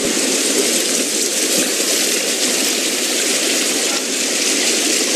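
A swollen, flooded river rushing over and between boulders in rapids: a steady, unbroken rush of water.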